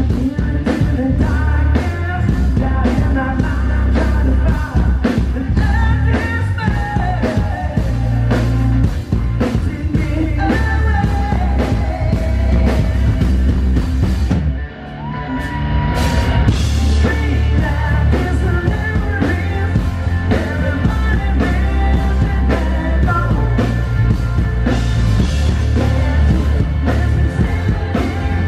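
Rock band playing live and loud: electric guitars, bass guitar and drum kit with a singer's voice over them. About halfway through the band drops out for a moment, then comes back in.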